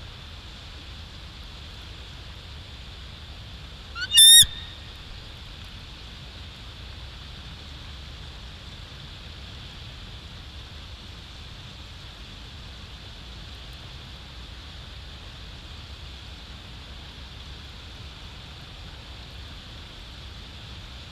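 Bald eagle calling: one loud, half-second burst of rapid, high-pitched chittering notes about four seconds in, over a steady background hiss.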